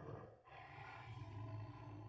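Faint, low growl from a big cat, presented as a saber-toothed cat, breaking off briefly about half a second in and then rumbling on steadily.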